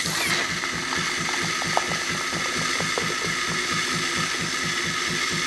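Jura E8 super-automatic espresso machine frothing milk and dispensing milk foam, its milk system running with a fast, even mechanical pulsing.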